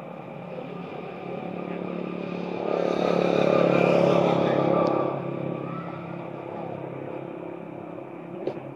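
A motor vehicle engine running, growing louder about three seconds in as it passes, then fading. A single short click comes near the end.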